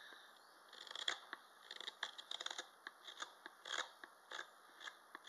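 Hook knife by Peter Von Trott slicing unseasoned wood out of a carved spoon's bowl: a quick run of short cutting strokes, about two or three a second, some bunched close together.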